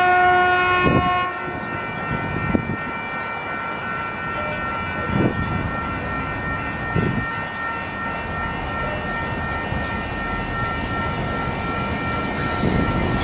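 Sprinter Siemens Desiro diesel multiple unit sounds its horn in one blast of about a second and a half. Its steady whine and rumble then run on.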